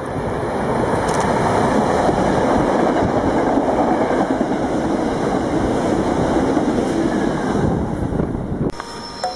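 SEPTA Silverliner electric commuter train passing close by at speed: a loud, steady rumble of wheels on rail that builds over the first second or so and holds. It cuts off suddenly near the end, where faint high tones begin.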